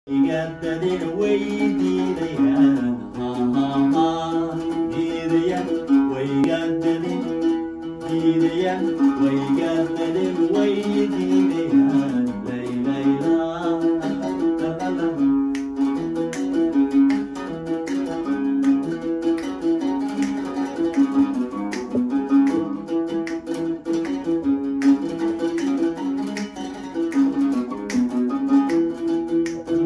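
Oud (kaban) plucked in a Somali song, with a sustained lead melody carried into a microphone over it.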